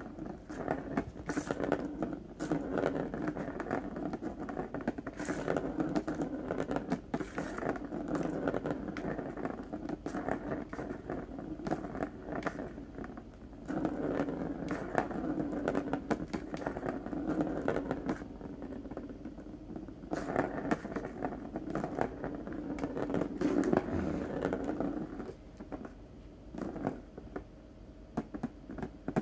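Plastic ball rolling round the circular plastic track of a Turbo ball cat scratcher: a steady rolling rumble with frequent clicks and rattles as it is flicked around. It goes quieter near the end.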